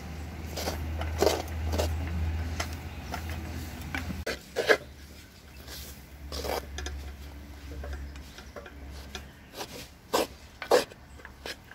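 Wooden spoon stirring shredded young jackfruit mallum in a clay pot: irregular rasping scrapes of wood against the clay, with a low hum underneath for much of it.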